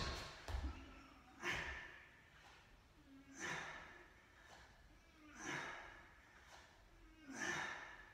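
A man breathing hard while doing press-ups: a short, forceful exhale about every two seconds, four in all, one with each push-up.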